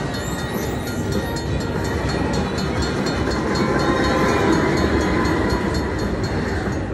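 Cash Express Luxury Line slot machine playing its train sound effect through its speakers: a locomotive rolling and clattering as the 'Look Up' train feature plays, swelling louder about halfway through.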